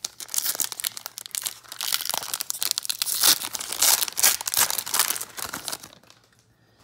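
A trading-card pack's plastic wrapper being torn open and crinkled as the stack of cards is pulled out, loudest in the middle and stopping about six seconds in.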